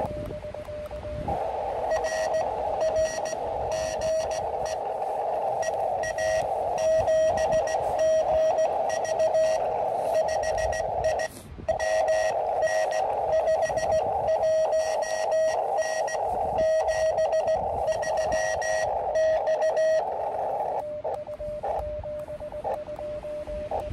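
Morse code (CW) from an Elecraft KX2 QRP transceiver: a single steady-pitched beep keyed on and off in dots and dashes over a band of receiver hiss. About a second in the hiss comes up, and near the end it drops away again, leaving only the keyed tone.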